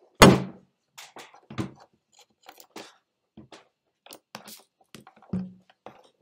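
Contact noise of something rubbing and knocking against the microphone. A loud thump comes just after the start and another about five seconds in, with irregular clicks and scrapes between.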